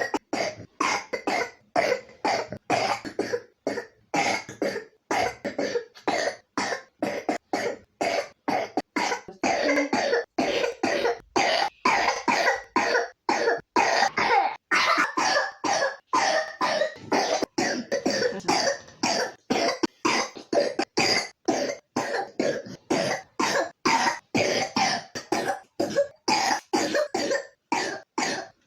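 A three-year-old child with pneumonia coughing over and over: short, sharp coughs, about three a second, with hardly a pause between them.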